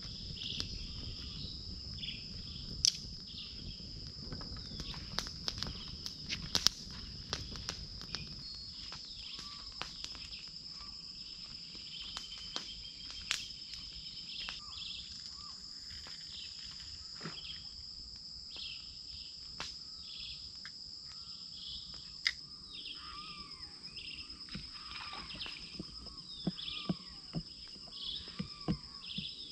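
A steady high-pitched insect chorus, with bird calls chirping over it, growing busier in the last few seconds, and scattered sharp clicks.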